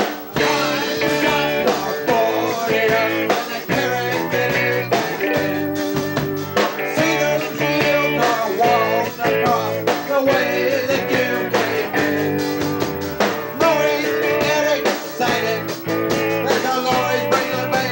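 Live punk rock band playing: electric guitar and drum kit with singing, loud and driving.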